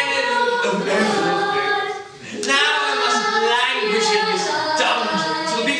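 A choir singing unaccompanied, with a short break between phrases about two seconds in.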